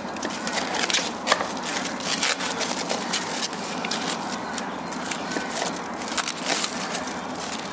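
Plastic cling film crinkling and crackling as it is wrapped and pressed around a horse's hoof over a freshly applied crack repair, in irregular crackles with a sharper one just over a second in.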